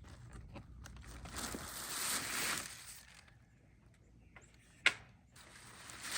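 A rustling, scraping noise lasting a second or two, then one sharp click or knock near the end.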